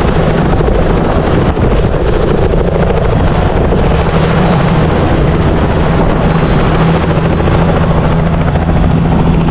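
Helicopter running close by, its engine and turning rotor making a loud, steady noise.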